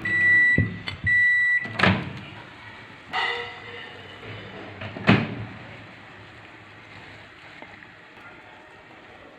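LG microwave oven's keypad beeping: two long, high beeps within the first second and a half, followed by a click. A sharp click comes about five seconds in, and after it there is only a faint steady hum.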